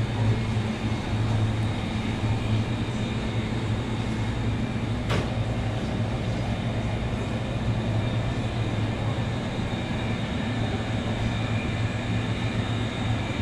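Steady low machine hum of refrigerated display cases and their fans, with a thin steady whine above it and one sharp click about five seconds in.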